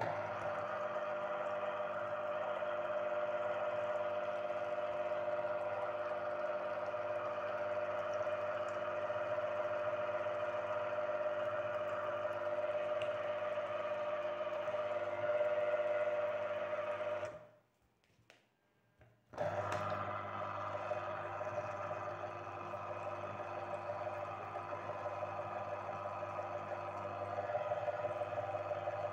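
Electric citrus juicer motor running with a steady hum as a lemon half is pressed down onto its spinning reamer. It stops for about two seconds a little past halfway, when the lemon is lifted off, then starts again for the rest.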